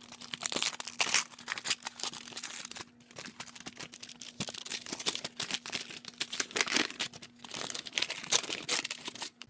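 A mail package being opened by hand: packaging rustling, crinkling and tearing in quick irregular scrapes, with a short lull about three seconds in.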